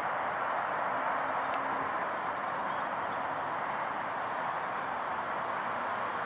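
Steady outdoor background noise: an even hiss at a constant level, with no distinct events.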